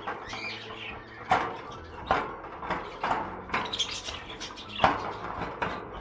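Irregular clicks and knocks on a wire bird cage, about six in all with the loudest near the end, mixed with a few short chirps from the small cage birds inside.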